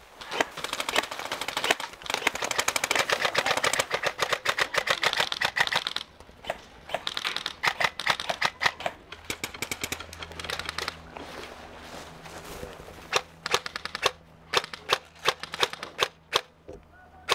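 Airsoft guns firing: dense, overlapping rapid-fire bursts for about the first six seconds, then sparser single shots and short bursts.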